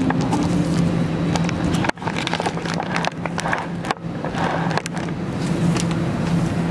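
Steady low hum of an airliner cabin's air system, with clothing rustling and brushing against the phone's microphone. The sound drops out briefly twice, about two and four seconds in.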